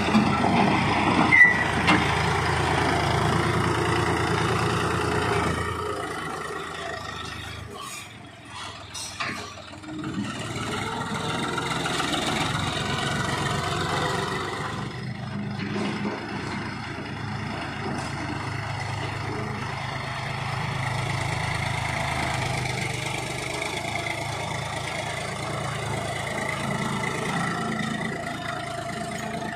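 John Deere 5310 tractor's diesel engine running while its front dozer blade pushes and levels stony soil, with a brief high squeak about a second and a half in. The engine sound drops for a few seconds about a third of the way in, then returns steady.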